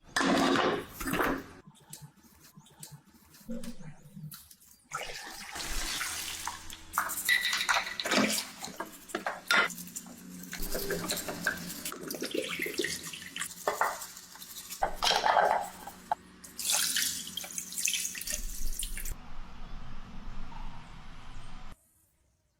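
Water running and splashing in irregular bursts, with a faint steady hum through the middle; it cuts off suddenly shortly before the end.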